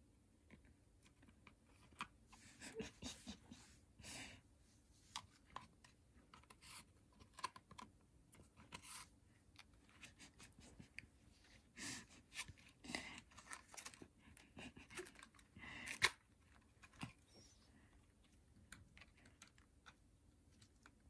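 Faint crinkling and rustling of a handmade foil-covered cat mask being handled while a cat paws at it, in scattered bursts of small taps and clicks, the sharpest click about sixteen seconds in.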